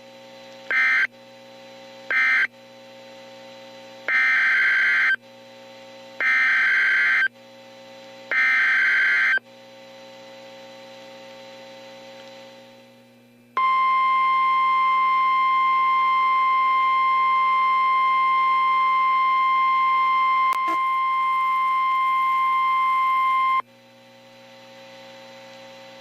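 Emergency Alert System tones off NOAA Weather Radio: two short screeching data bursts near the start that close the previous alert, then three one-second screeching header bursts about two seconds apart announcing a new warning. After a few seconds' pause comes the steady 1050 Hz weather-radio alert tone, held for about ten seconds and cutting off suddenly, with a low steady hum underneath in the gaps.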